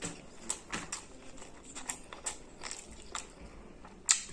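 Close-miked eating by hand: scattered wet mouth clicks, lip smacks and chewing, with one sharper crunch about four seconds in as he bites into a fried chilli.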